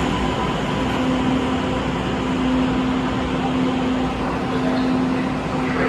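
Steady hum of MBTA Green Line light-rail trains in an underground station: one constant tone over a low rumble.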